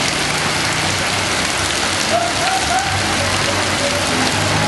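Steady rain falling on a wet paved street, an even hiss of drops with a faint low hum underneath.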